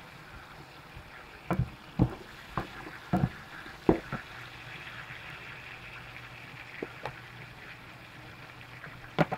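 Sliced onions sizzling in palm oil in a frying pan, with a wooden spoon stirring and knocking against the pan several times, most of the knocks in the first four seconds and a few more near the end.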